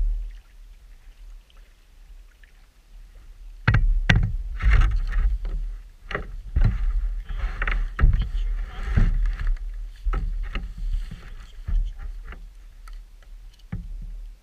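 Handling noise in an inflatable kayak: a run of knocks, thumps and rustling as a steel vacuum flask is pulled out and handled against the boat. It starts a few seconds in and eases off near the end.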